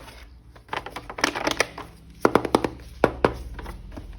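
Hands handling a plastic toy figure and its packaging: an irregular run of sharp clicks, taps and crinkles, busiest in the second half, over a faint steady hum.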